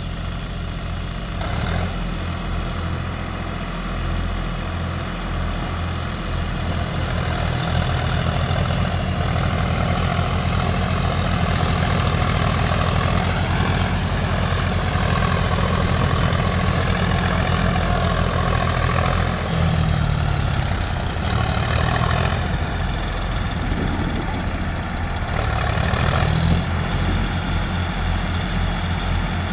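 John Deere and Sonalika diesel tractor engines running together, a steady low chugging whose pitch shifts twice, about two-thirds of the way through and again near the end.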